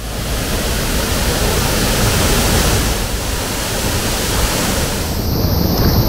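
Rushing water of a waterfall and stream, loud and steady, close to the microphone; the sound of the water changes about five seconds in.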